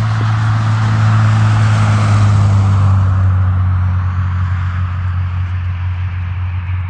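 A motor vehicle running, with a steady low engine drone and a rush of noise that swells a second or two in and then eases.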